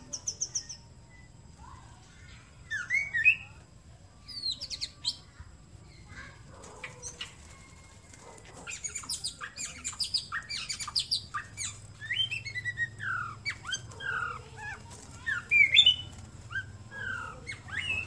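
White-rumped shama singing: a varied song of rising and falling whistles mixed with rapid harsh and chattering notes, sparse at first and turning into a dense, continuous run about halfway through.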